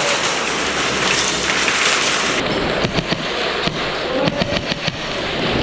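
Airsoft guns firing during close-quarters play: a steady noisy wash of field sound with a quick run of sharp cracks about three seconds in.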